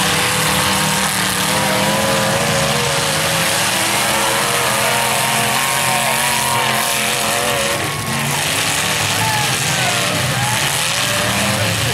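Several demolition derby cars' engines running hard and revving, their pitch rising and falling over a steady loud din.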